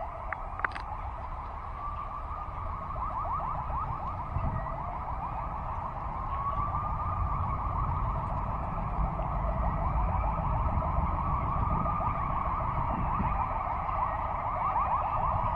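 A siren wailing, its pitch sliding slowly up and down every few seconds with a fast warble inside it, growing louder about halfway through, over a low rumble.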